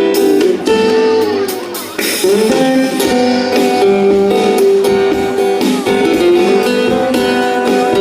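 Live band playing an instrumental break of a Thai pop song, with guitar carrying the music and no singing.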